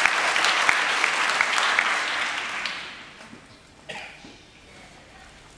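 Audience applause that dies away about three seconds in, leaving a quiet hall with one brief sound near four seconds.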